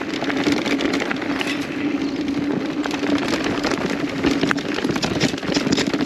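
Kona Process X mountain bike rolling along a dirt trail: steady tyre noise with a constant hum, and frequent small clicks and rattles from the bike and the trail surface.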